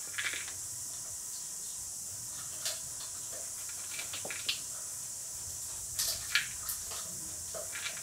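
Steady hiss from the recording's background noise, with a few faint, short rustles and taps scattered through it.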